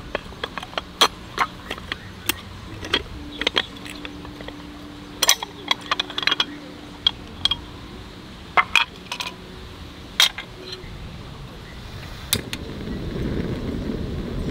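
Metal clicks and clinks as a SOTO folding hot-sandwich press is unlatched, its two pan halves pulled apart, handled and set down on a gas stove. A low rushing noise swells near the end.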